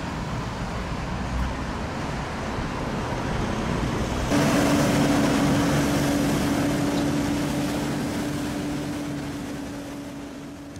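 City street traffic noise, a steady wash of passing vehicles. About four seconds in it suddenly gets louder and a steady low hum joins, then it slowly fades.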